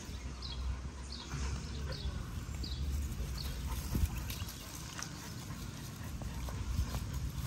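Huskies panting as they move about on the grass, with a low rumble of wind on the microphone. In the first half comes a run of short, high, falling chirps, roughly one every half second to second.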